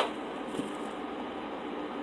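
Steady low background hiss with a single sharp click at the very start and a faint soft sound about half a second in, a pause between bites.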